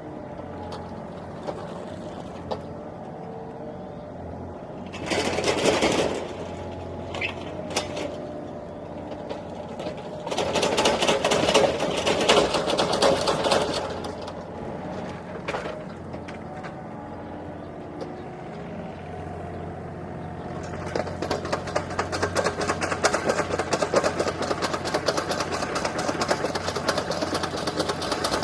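Mini excavator's diesel engine running steadily, with louder spells about five seconds in and again around ten to fourteen seconds, and a busier, rapid rattling sound from about two-thirds of the way through.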